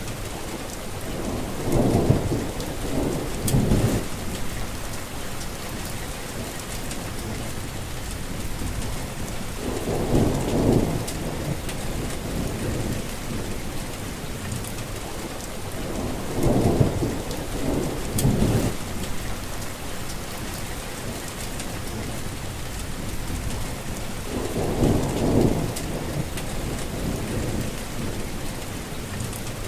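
Steady rain falling, with rolls of thunder: four low rumbles spaced several seconds apart, and a fifth starting at the very end.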